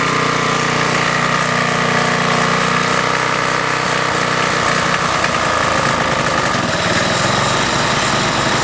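Small single-cylinder engine of an old riding lawnmower running steadily at a constant speed, freshly got going after repairs.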